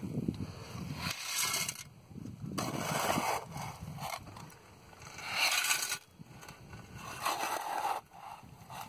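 Gravel-and-cement concrete mix being scooped out of a metal pan with a hand trowel and tipped into a post hole: a few short gritty scrapes, roughly two seconds apart.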